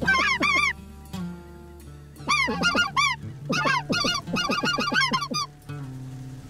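A flock of geese honking in quick clusters of overlapping calls. They pause about a second in, then resume, and die down near the end.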